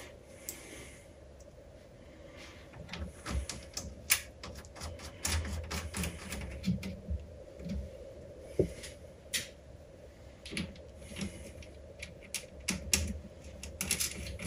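Irregular light clicks and taps of small parts and hand tools being handled, sparse at first and coming thick and fast from about three seconds in.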